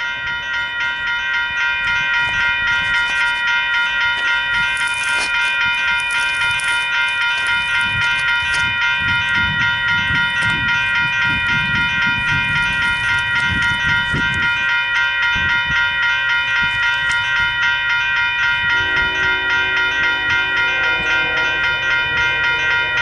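Railroad grade-crossing warning bell ringing continuously, its strokes pulsing about twice a second: the crossing is activated for an approaching train. About 19 seconds in, the approaching Union Pacific freight's horn sounds fainter underneath in a few blasts.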